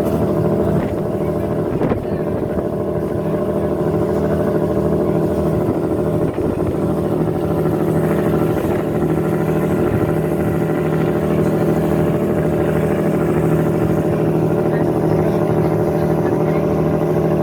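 Riverboat engine running at a steady speed, a constant drone that does not change.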